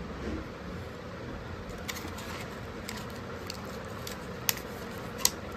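Steady room hum with a few short, sharp clicks and taps scattered through it, the loudest near the end: small handling noises.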